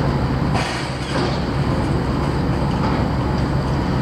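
Steady low drone of a large passenger-cargo ferry's diesel machinery running while she lies alongside before sailing, a deep even hum under a wash of mechanical noise.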